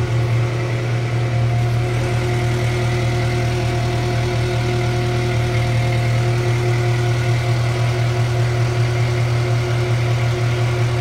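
Engine of a large wheeled machine idling steadily: a constant, even low hum with fainter steady higher tones above it.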